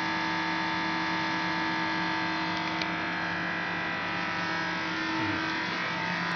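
Skoda heavy lathe running: a steady machine hum with several held tones, from its electric drive motor and headstock gearing.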